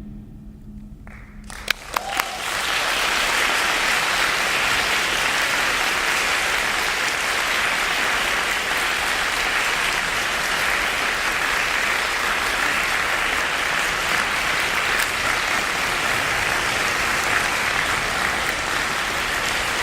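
Audience applauding at the end of a wind band piece: the band's last note dies away, a few single claps break out about two seconds in, then steady applause from the whole audience.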